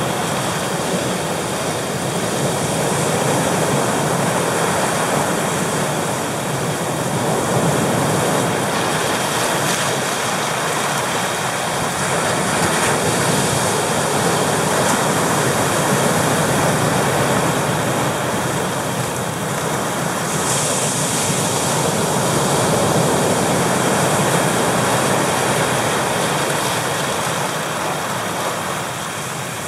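Ocean surf breaking and washing over flat shoreline rocks: a continuous rushing roar of churning foam that swells and eases slowly as each wave comes in.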